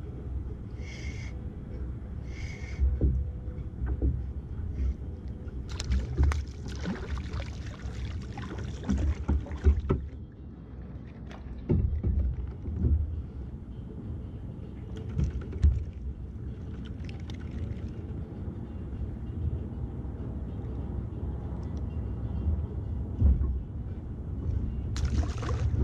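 Small waves lapping against a kayak hull, with irregular knocks and rustles as a fish is landed and unhooked on board. About six seconds in there are a few seconds of hissy splashing.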